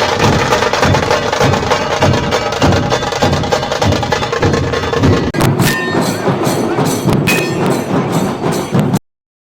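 Nashik dhol drumming: a group of heavy barrel drums beaten in a fast, dense rhythm. The playing breaks briefly about five seconds in, picks up again, and cuts off suddenly near the end.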